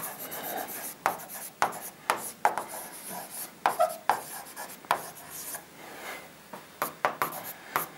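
Handwriting on a board: a string of short, irregular scratching strokes and light taps as words are written out.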